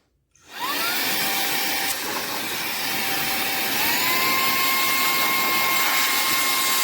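SAKAKI 120 W handheld cordless vacuum running with its blower nozzle fitted: the motor spins up with a rising whine about half a second in, runs steadily on the low setting, then steps up to a higher whine about four seconds in as it is switched to the high setting.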